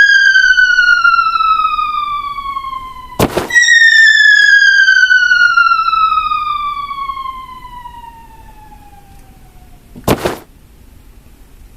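Cartoon falling-object whistle sound effect: a descending whistle that cuts off with a sudden crash about three seconds in, then a second, longer descending whistle that fades away before another crash about ten seconds in.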